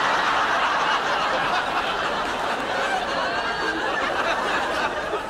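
Studio audience laughing, sustained and loud, easing off slightly toward the end.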